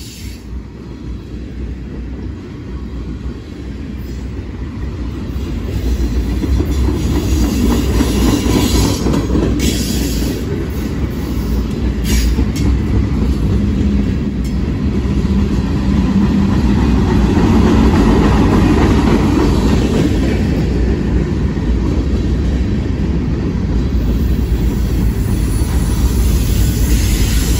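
Freight train's tank cars and covered hopper rolling past close by: a steady rumble and clatter of steel wheels on the rails, growing louder over the first few seconds and then holding.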